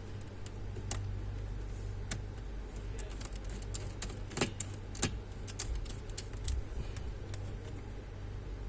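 Scattered light clicks and taps of small computer parts and plastic being handled, with two sharper clicks about halfway through. A steady low hum runs underneath.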